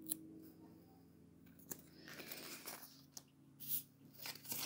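Paper planner sticker sheets being picked up and handled: faint rustling and crinkling with a few light taps, loudest about three and a half seconds in.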